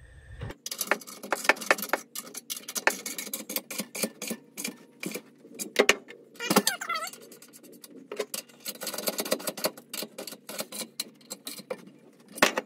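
Hand socket ratchet clicking in quick runs of strokes, with short pauses between them, as a bolt is tightened down on a steel hitch frame.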